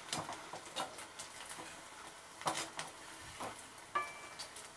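Potato and flattened-rice (poha) snacks sizzling faintly in hot oil on a low flame, with a few light taps and clicks from stirring. A brief ringing note comes near the end.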